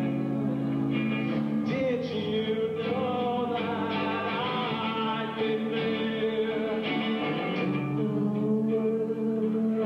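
Alternative rock band playing live: guitar chords with a voice singing over them.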